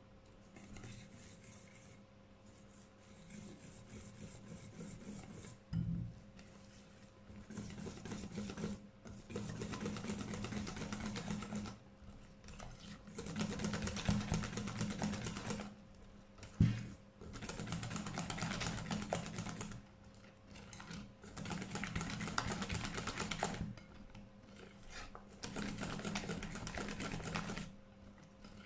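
Wire balloon whisk beating a thick flour-and-cornstarch cake batter in a glass bowl: rapid ticking of the wires against the bowl in spells of two to three seconds with short pauses. Two sharp knocks, one about six seconds in and a louder one past the middle.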